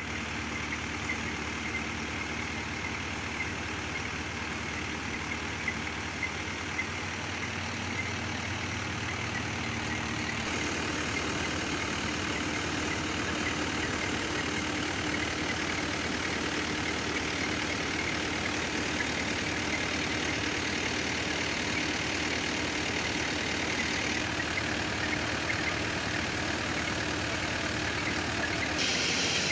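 Mahindra tractor's diesel engine running steadily, powering a portable flour mill (atta chakki). The running grows louder about ten seconds in.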